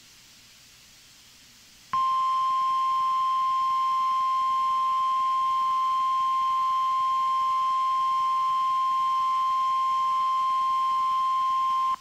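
NOAA Weather Radio 1050 Hz warning alarm tone: one steady, high, pure beep that starts abruptly about two seconds in and holds for about ten seconds over faint radio hiss. The tone signals that an emergency warning broadcast is about to follow.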